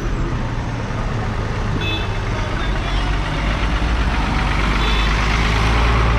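Large flatbed truck's engine rumbling low as the truck drives slowly past close by, growing louder as it draws alongside, over road noise. A couple of short high beeps sound about two and five seconds in.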